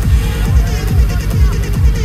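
Loud electronic dance music from a live DJ set on a festival sound system, driven by a steady, heavy kick drum.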